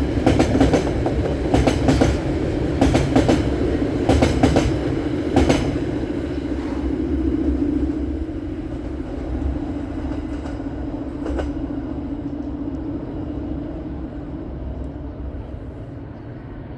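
Freight train passing: wheels clicking over rail joints in pairs for about the first five seconds, over the steady rumble of the diesel locomotives. The rumble then fades slowly as the train draws away.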